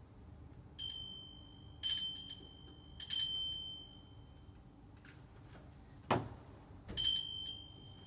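Altar bells rung at the elevation during the consecration of the Mass: three bright, ringing strikes about a second apart, then a fourth about seven seconds in, each fading over about a second. A single dull thud comes just before the last ring.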